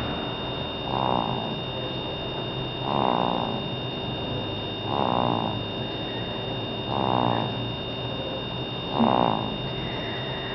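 A baby snoring in even breaths, a short snore about every two seconds, five in all. A faint steady high whine runs underneath.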